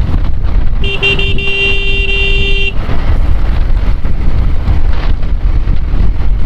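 A vehicle horn honks once, one steady tone lasting about two seconds, starting about a second in. Underneath it runs a constant rumble of wind and road noise from a moving motorcycle.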